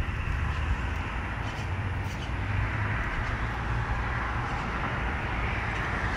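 Steady rush of road traffic with a low rumble underneath.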